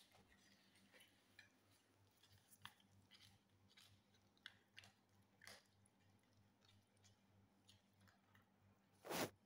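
A pet chewing food: faint, scattered crunches and clicks. One louder knock comes near the end.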